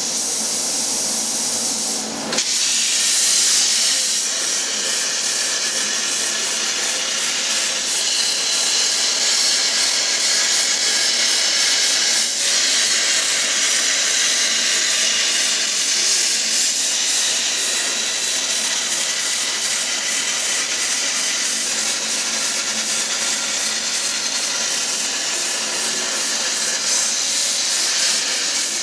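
Plasma cutter cutting, a loud, steady hiss that dips briefly about two seconds in and then runs on evenly.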